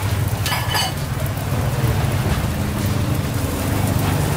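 A motor engine running steadily with a low hum. A brief high-pitched sound comes about half a second in.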